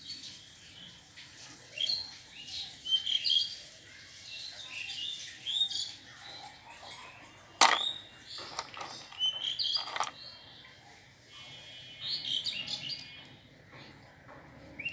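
Small birds chirping over and over in short calls, with a couple of sharp clicks of plastic toys knocking together about halfway through.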